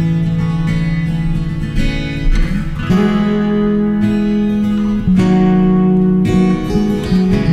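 Background music led by acoustic guitar playing held chords, with the chord changing about three seconds in and again near five and seven seconds.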